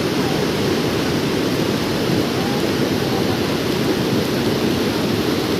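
Floodwater rushing by, a loud, steady, unbroken noise.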